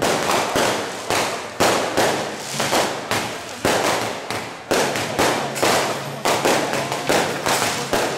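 Percussion of a Song Jiang troupe: cymbal and gong crashes at a fairly even beat of about two a second, each ringing out before the next, over a low steady hum.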